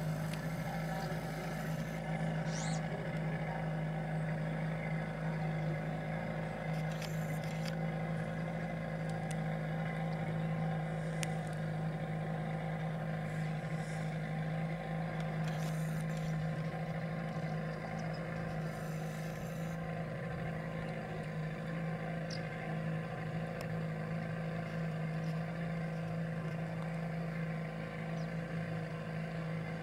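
Yamaha 30 hp outboard motor running steadily at constant speed, an even low-pitched hum that does not change in pitch or loudness.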